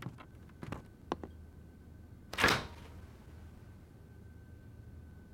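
Beer bottles being handled and one opened: a few light clinks and knocks, then a short sharp hiss about two and a half seconds in. A faint steady high tone runs underneath.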